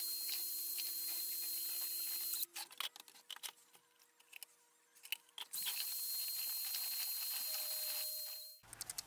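Cordless drill with a paddle mixer running steadily in a bucket of epoxy resin, a high hissing whine. It stops about two and a half seconds in and gives way to a few seconds of light clicks and knocks as resin is poured from one bucket into the other. Then the drill runs again until it stops about a second before the end.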